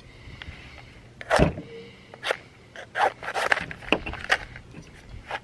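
Soaked ordinary wooden matches struck again and again on a matchbox's striker strip: about six short scrapes, the loudest about a second and a half in. The matches are too wet to catch.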